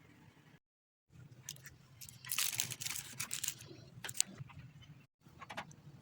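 Kitchen handling noises: a dense burst of rustling and scraping, then a few sharp clicks, broken twice by abrupt cuts to silence.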